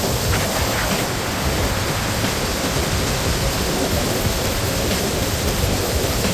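Sea-Doo personal watercraft running at speed on open water: a steady rush of wind and water noise that does not change.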